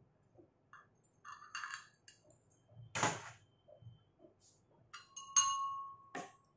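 Glassware being handled: a few light clinks and a louder knock about three seconds in, then a glass is struck near the end and rings with one clear note for about a second before it is damped.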